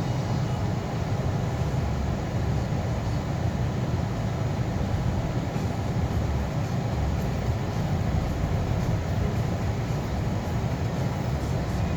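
Steady low rumble of a car driving, heard from inside the cabin: engine and tyre noise on a snowy road.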